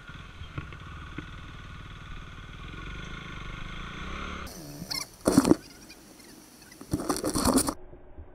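KTM Duke 390's single-cylinder engine running steadily at low revs. About five and seven seconds in, two loud rushing bursts of noise cut over it.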